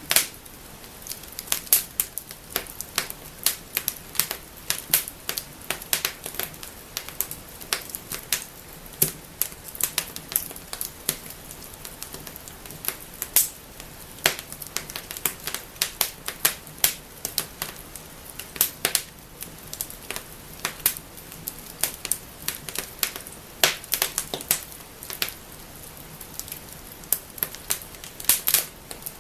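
Wood fire burning in a fireplace, crackling and snapping: irregular sharp pops, at times several a second, over a soft steady hiss.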